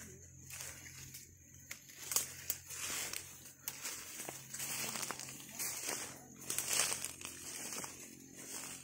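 Ferns and undergrowth rustling and swishing as people push through on foot, with irregular crackles of leaves and twigs; the swishing comes in uneven surges, loudest about two seconds in and again in the middle.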